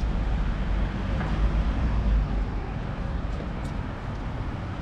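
Town-street background noise: a low, steady rumble of traffic that swells about a second in and eases off again.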